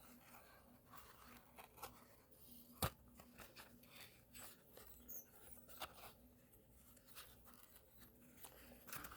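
Faint crinkling and small clicks of a cardboard crayon box being picked at and torn, with one sharper click nearly three seconds in.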